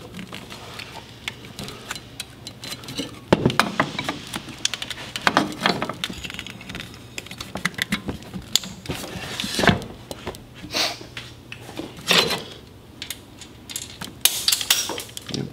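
Irregular plastic clicks, rattles and knocks as an electric power steering controller and its wiring harness connectors are handled and fitted in place, with a few sharper knocks scattered through.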